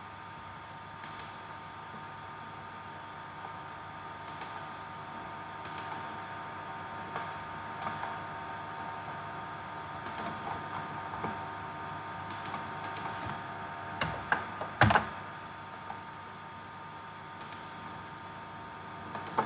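Computer mouse and keyboard clicks: crisp, short clicks, many in quick pairs, every second or two, with a louder cluster of knocks about fourteen to fifteen seconds in, over a steady faint background hum.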